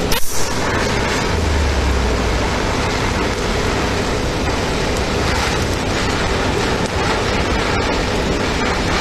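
A TIG welding arc strikes with a couple of sharp pops just after the start, then hisses steadily as it melts the two edges of a steel plate together without filler rod.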